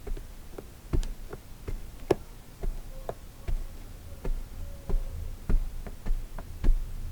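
Kinetic sand being cut and crunched with a tool: a run of soft, irregular ticks and taps, about two or three a second.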